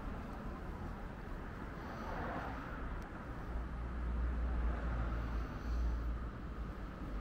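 Outdoor street ambience: a steady noisy hum with a deep rumble that swells for a couple of seconds in the middle.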